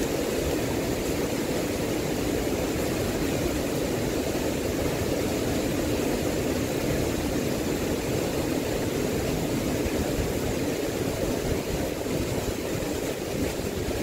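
Strong typhoon wind blowing steadily, with wind buffeting the microphone in a low rumble.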